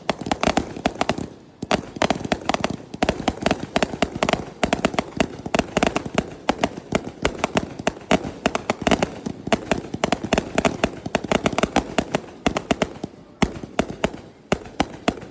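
Fireworks going off in rapid succession: a dense run of overlapping sharp bangs and crackles that thins out a couple of seconds before the end.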